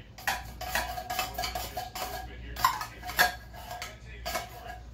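Metal spoon scraping and clinking against the inside of a tin can as table cream is scooped out, in a run of repeated scrapes and knocks. The two loudest clinks come just past the middle.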